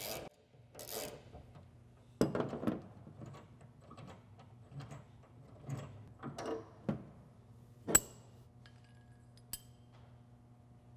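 A last stroke or two of a ratchet wrench, then scattered light metal clinks and small knocks as a Torx truck-bed bolt is spun out by hand and handled against the metal tie-down bracket. The sharpest clink comes about eight seconds in.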